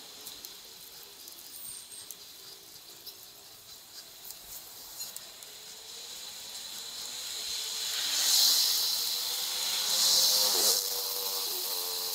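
Street noise from a bike-mounted action camera, sped up threefold: a steady hiss that grows louder over the second half, with a vehicle's engine hum that dips and rises in pitch near the end.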